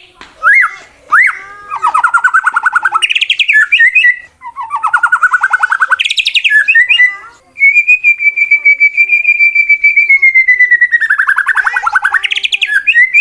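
Male white-rumped shama singing a loud challenge song: short upswept whistles, fast rattling trills, and a long steady whistle held for about three seconds that ends in a falling trill. This is the aggressive song a fighting competition bird uses toward a rival.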